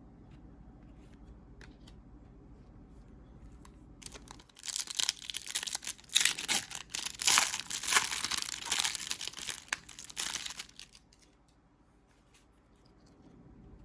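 Foil trading-card pack wrapper being torn open and crinkled, a dense run of sharp crackles starting about four seconds in and stopping abruptly about seven seconds later.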